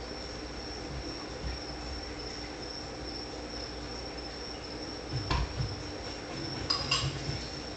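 Crickets chirping steadily in a high, continuous trill over a faint low hum, with a click about five seconds in and a few faint knocks near the end.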